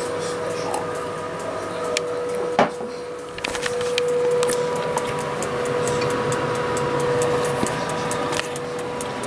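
Halogen convection oven running while roasting meat, its fan motor giving a steady hum, with light handling clicks and one sharp knock about two and a half seconds in.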